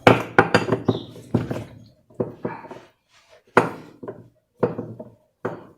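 A wrench loosening the 13 mm bolt at the centre of a washing machine's wash basket: a quick run of sharp metallic clicks in the first second, then scattered single clicks and knocks of tool on metal.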